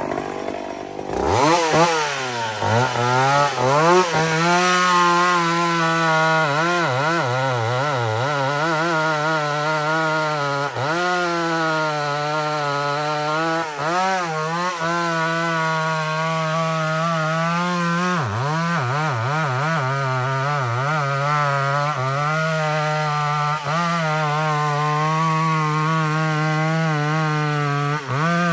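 Vintage McCulloch SP81 two-stroke chainsaw revving up about a second in, then running at full throttle while cutting through a big log with a 32-inch bar. Its pitch dips repeatedly as the chain loads down in the cut, and recovers each time.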